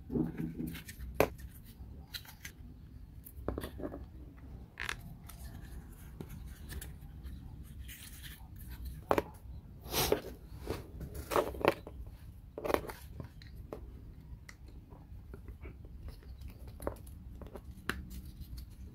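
Small wooden puzzle pieces being handled and pressed together: irregular clicks and taps, with a cluster of louder ones about halfway through.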